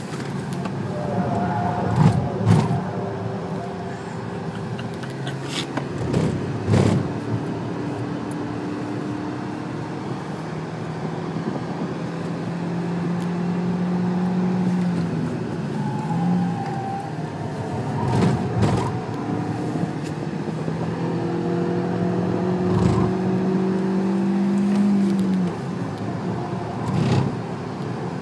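Seat Leon 1.4 FR's turbocharged four-cylinder petrol engine, heard from inside the cabin while the car is driven hard on a race track. The engine note climbs under acceleration and drops back several times over a steady rush of road and wind noise, with several sharp knocks scattered through.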